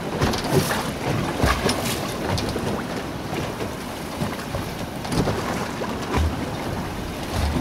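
Wind buffeting the microphone on a small boat at sea, with choppy water slapping irregularly against the hull.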